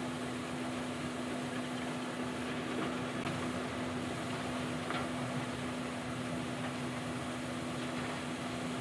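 Steady mechanical hum with one constant low tone, like a machine or engine running, with a few faint clinks of metal parts.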